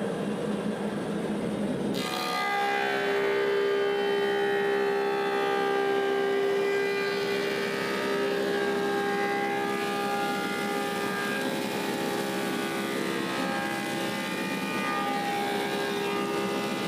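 Woodmaster 725 planer with a helical cutterhead taking a pass on a walnut slab. About two seconds in, the cutterhead bites into the board and the sound turns into a steady whine of several tones that holds as the slab feeds through.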